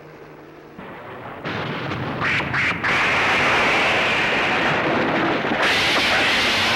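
Heavy artificial rain pouring down as a steady hiss, building up over the first few seconds and staying loud.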